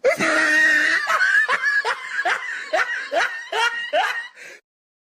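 A snickering laugh meme sound effect: a held first note, then a run of short laughs, each rising in pitch, about two or three a second, stopping shortly before the end.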